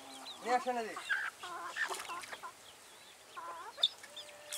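Chickens clucking in short clusters of calls, with a quieter lull around the middle.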